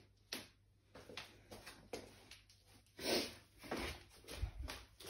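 Footsteps in shoes on a laminate wood floor: a string of light knocks about two a second, with a louder thump about three seconds in.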